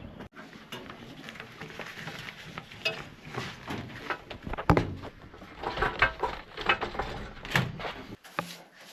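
Metal parts and tools being handled during a furnace installation: irregular clinks, clatters and knocks, the loudest about five seconds in.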